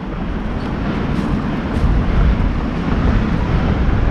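Wind rushing over the microphone of a moving BMX rider: a steady, deep rushing noise that grows slowly louder.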